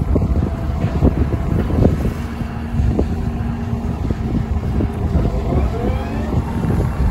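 Diesel engine of a Doosan DX140W wheeled excavator running steadily with a low rumble, under scattered knocks and wind on the microphone. A faint rising tone comes in during the second half.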